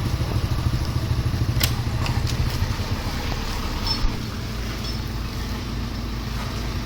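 Engine of heavy construction machinery running with a strong pulsing beat, then easing to a lower, steadier run about four seconds in. A sharp click comes near the two-second mark.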